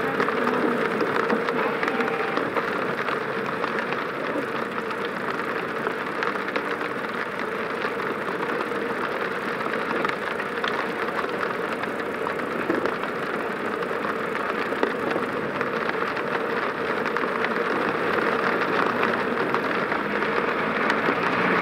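Car driving in the rain: a steady mix of engine noise and tyre hiss on wet road, with a constant hum.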